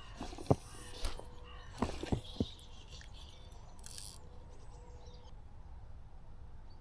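Five sharp clicks in the first two and a half seconds, with birds calling faintly over a steady background.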